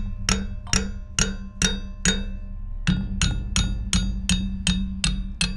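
Hammer blows on the seized steel hub of an Eli Bridge Ferris wheel, about two strikes a second with a short pause near the middle, each strike ringing metallically over a steady low rumble. The hub has been heated with a torch and is being hammered to break it free of its shaft.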